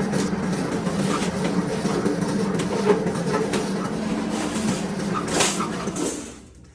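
A power tool running steadily with a low hum and a rasping edge while it cuts sheet metal for a duct end cap. It starts abruptly and winds down just before the end.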